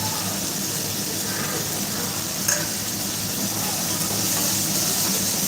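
Chicken gravy sizzling in a pan: a steady hiss over a steady low hum, with a single sharp click about two and a half seconds in.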